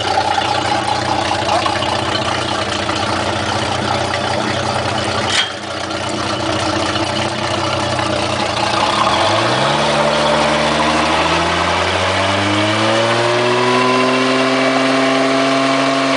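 Crown Line 180's sterndrive engine running out of the water, cooled by a garden hose, with its propeller spinning. A brief click about five seconds in; then the revs climb steadily from about nine seconds in and hold higher.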